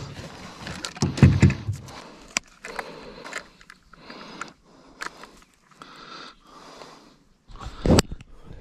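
Irregular handling noises: rustling and scraping broken by scattered clicks, with a sharp click about two seconds in and a louder burst near the end.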